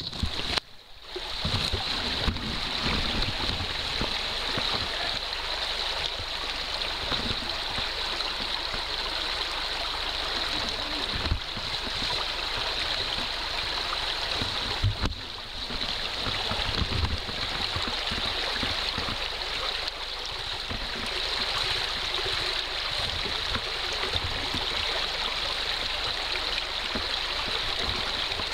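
Small woodland stream running over rocks close by, a steady rush of water. The sound drops out briefly about a second in, and a few low knocks come through later.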